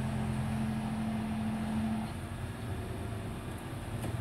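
Scania garbage truck's diesel engine running with a steady hum that drops away about halfway through, leaving a lower engine rumble.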